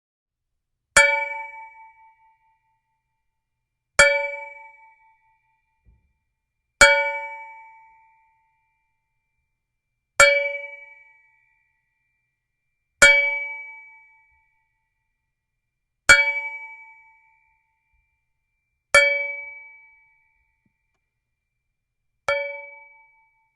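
A piece of metal struck eight times, about three seconds apart, each hit ringing with several clear tones and an echoing decay of about a second. The last hit is softer.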